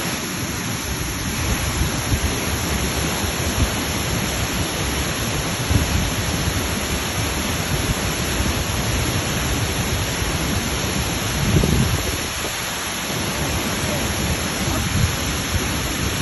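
Waterfall: a loud, steady rush of falling water, with an uneven low rumble underneath.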